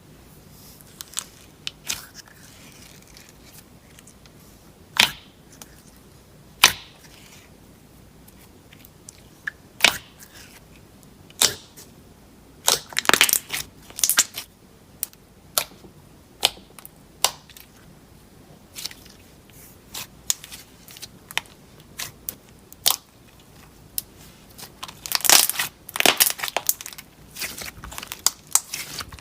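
Slime being squished and poked, giving scattered sharp clicks and pops, with denser crackling runs about halfway through and again near the end.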